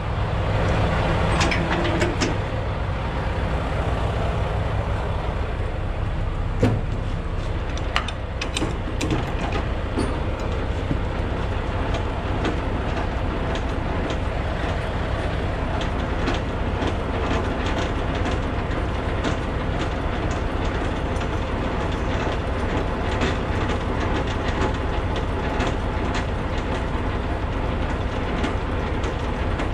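Semi-truck diesel engine idling steadily, with scattered metallic clicks and clanks over it and a sharper knock about seven seconds in.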